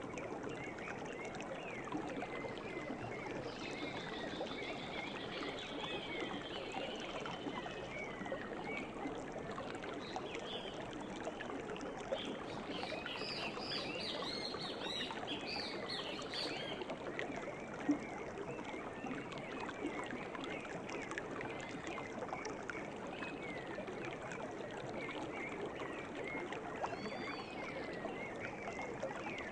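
River water flowing steadily, with birds chirping and singing over it: a high trill a few seconds in and a busier flurry of calls around the middle.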